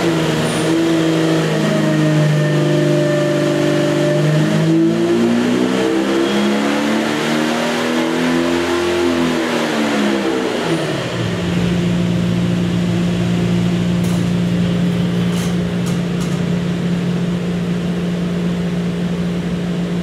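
Jeep 4.6-litre straight-six stroker engine running on an engine dynamometer during a power pull: its note climbs for about nine seconds, falls sharply about ten seconds in, then holds steady at lower speed.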